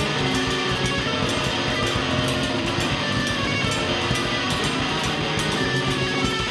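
A live band playing together: electric guitar, electric keyboard and a drum kit, with frequent cymbal and drum hits over a dense, steady wall of sound.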